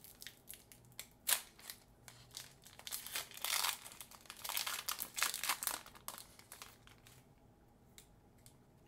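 Foil wrapper of a Pokémon TCG Temporal Forces booster pack torn open and crinkled by hand as the cards are pulled out: sharp crackles, one loud snap just over a second in, densest between about three and six seconds in, thinning out near the end.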